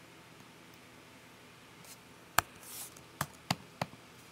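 Sharp clicks from a computer keyboard and mouse: one about two seconds in, with a short soft hiss after it, then three more spread over the next second and a half.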